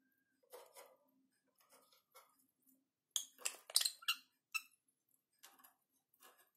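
Lovebirds' beaks and feet clicking and clinking against the metal wire bars and perch of their cage, with a burst of louder, ringing clinks about three to four and a half seconds in.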